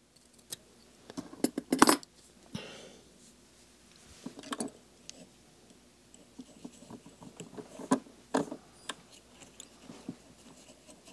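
Fly-tying handling sounds at a rotary vise: scattered small clicks, taps and short rustles as fox fur is worked onto the hook, picked up close by a clip-on microphone.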